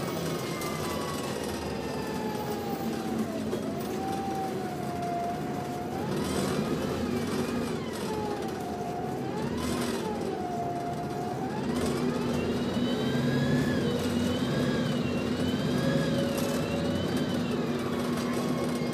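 Inside a moving Volvo B7TL double-decker bus: the engine and Voith transmission running, with whining tones that glide down, then rise and fall in pitch, and wobble up and down over the last several seconds.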